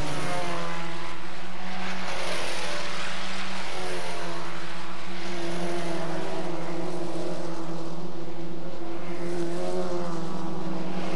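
Formula Ford 1600 race cars running at speed, their engines making a steady drone with notes that rise and fall several times as the cars pass and change speed.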